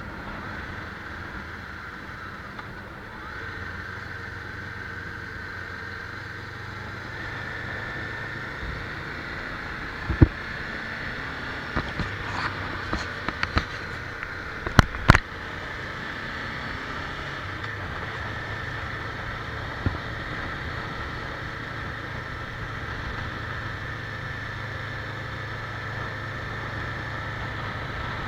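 Steady running noise of a vehicle on the move, a low hum under a rushing noise. A cluster of sharp knocks or clicks comes about ten to fifteen seconds in, with one more a few seconds later.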